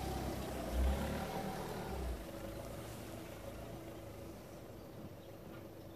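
Citroën van's engine running as the van drives slowly across grass and pulls up, loudest in the first two seconds, then quieter and steady.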